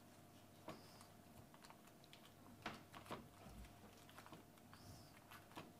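Near silence with a few faint, scattered clicks and paper rustles as a block of butter is unwrapped from its paper wrapper.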